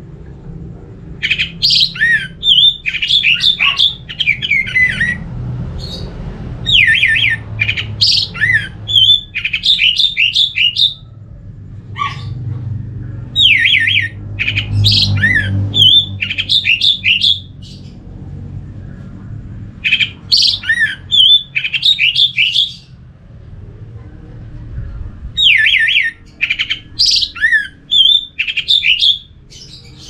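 Orange-headed thrush singing: five loud phrases of rapid whistled notes, each two to four seconds long, separated by short pauses.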